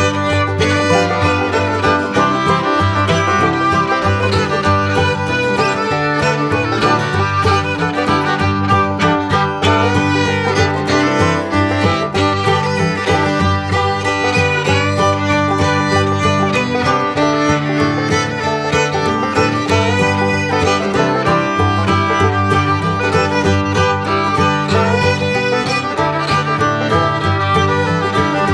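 Background music: an upbeat bluegrass-style tune with fiddle over plucked strings and a steady beat.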